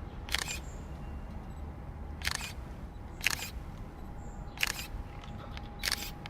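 Single-lens reflex camera shutter clicking five times, about one to two seconds apart, over a low steady background noise.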